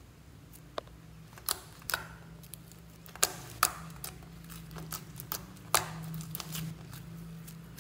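Foamy slime being squeezed and pressed by hand, giving off a string of sharp wet pops and clicks as trapped air bursts. The loudest pops come about a second and a half, three and a half and nearly six seconds in.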